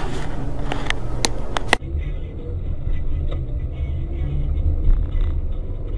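Car driving, a steady low rumble of engine and road noise. A few sharp knocks come in the first two seconds, before the recording changes abruptly.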